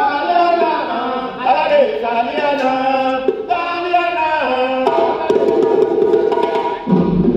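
Music of singing voices carrying a gliding melodic line, with a heavier beat coming in near the end.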